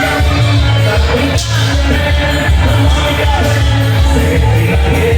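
Loud recorded festa junina dance music with a strong bass beat and a singing voice.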